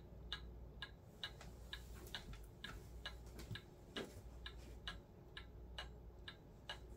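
A clock ticking steadily, a little over two ticks a second.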